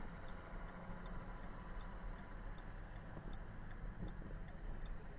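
Steady road and engine rumble heard inside a moving car, with a light regular ticking about twice a second.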